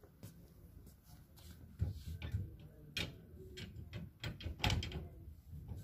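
A series of irregular knocks and clicks, loudest about two seconds in and again near the end.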